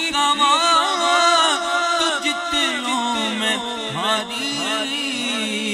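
A man sings a naat (Urdu/Punjabi devotional song in praise of the Prophet) solo into a microphone, in long, ornamented, wavering melodic lines. About halfway through, a steady low chanted drone comes to the fore under fainter vocal glides.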